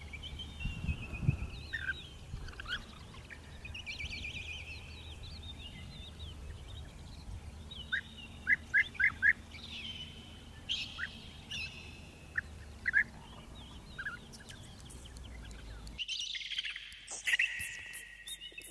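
European bee-eaters calling: repeated rolling, trilled calls with short chirps in between. About sixteen seconds in the sound cuts abruptly to a different recording of chirping with sharp high ticks.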